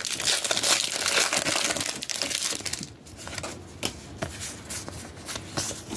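Foil booster-pack wrapper crinkling loudly as it is torn open. From about three seconds in come quieter, scattered rustles and clicks of the cards being handled.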